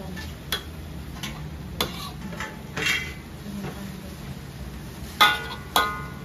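Metal spatula scraping and clicking against a stainless-steel wok as greens are stir-fried, with two loud ringing clanks of metal on metal near the end.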